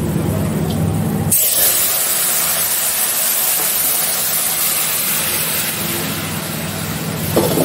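Spices frying in hot oil in a pot; about a second and a half in, chicken broth is poured onto the hot spiced oil and a loud sizzling hiss starts suddenly, then slowly eases as the liquid settles.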